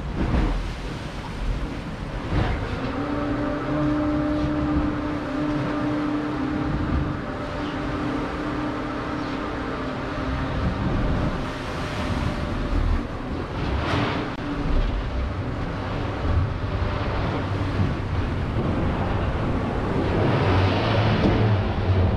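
Special operations boat's engines running under way with a steady hum, over a constant rush of wind and water and a few sharp knocks. The hiss of wind and spray swells near the end.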